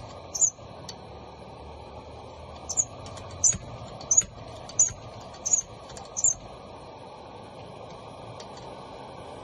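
Kerosene pressure lantern burner hissing steadily, with a run of short high squeaks about one every 0.7 seconds that stop about six seconds in.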